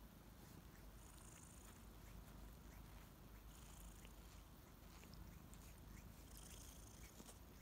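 Faint, steady purring of a kitten, with three brief soft rustling sounds about a second, three and a half seconds and six seconds in.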